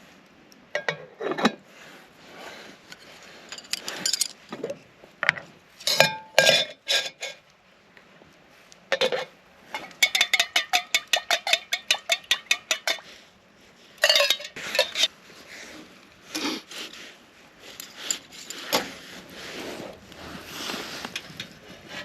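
Metal camp cookware and utensils clinking and knocking as dishes are washed and rinsed, with scattered single knocks and a quick run of about a dozen ringing taps, about four a second, midway through.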